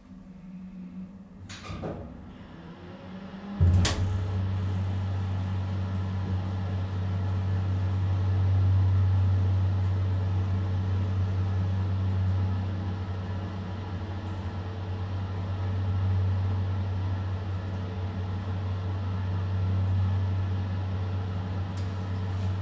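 Hydraulic elevator pump unit starting with a clunk about four seconds in, then running with a steady low electric-motor hum as it pumps the car upward. A lighter knock comes about two seconds in.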